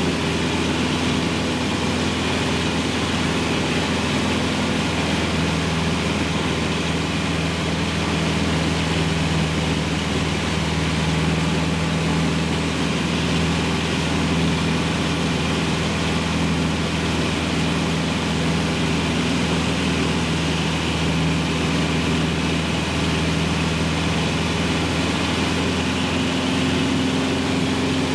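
Cessna 150's four-cylinder Continental O-200 engine and propeller heard from inside the cabin, a steady drone in flight. Its note shifts slightly about five seconds in and again near the end.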